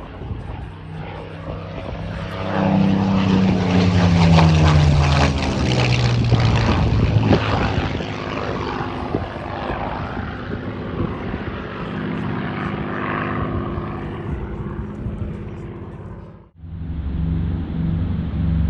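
A World War II propeller aircraft's piston engine flying past. The engine note swells to its loudest about four to six seconds in, its pitch sliding down as the plane passes, then settles into a steadier, fainter drone. Near the end the sound cuts off abruptly and a different engine begins a steady, pulsing run.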